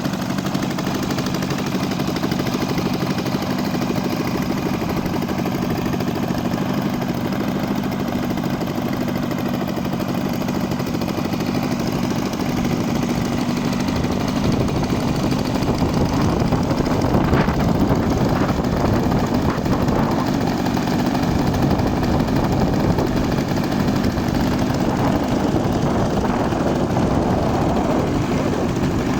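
Saito four-stroke engine of a radio-controlled model Spitfire running steadily with a rapid popping beat, a little louder about halfway through.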